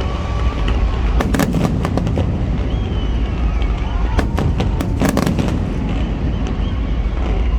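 Fireworks bursting overhead in quick clusters of sharp bangs over a steady low rumble, with a crowd talking underneath.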